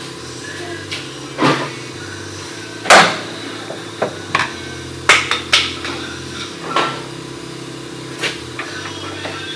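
Irregular sharp metal knocks and clanks from tools being worked on the suspension during a rear shock replacement, about eight strikes, the loudest about three seconds in, over a steady low hum.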